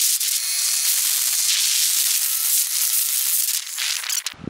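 Steady hiss of air rushing past the microphone on a moving open golf cart, with no engine sound picked up over it. It cuts off suddenly near the end.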